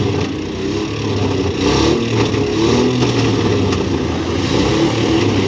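Engines of demolition derby trucks and SUVs running and revving as they manoeuvre in the arena. There is a brief noisy burst a little under two seconds in.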